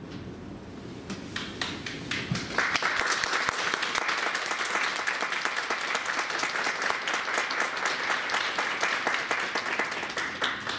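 Audience applauding: a few scattered claps about a second in, quickly building to steady applause that thins out near the end.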